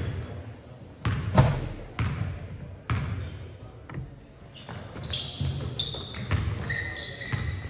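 Basketball bouncing on a gym floor, a thud roughly once a second, with sneakers squeaking in short, high-pitched chirps through the second half.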